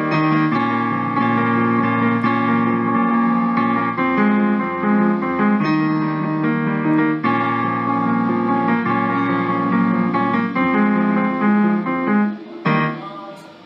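Background music: electric piano or keyboard playing sustained chords.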